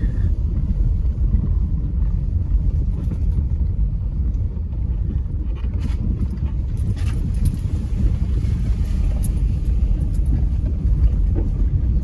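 Car driving along a rutted dirt road, heard from inside the cabin: a steady low rumble of engine and tyres, with a few light clicks around the middle.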